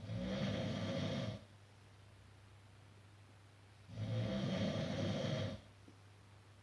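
A person snoring: two loud snores about four seconds apart, each lasting about a second and a half.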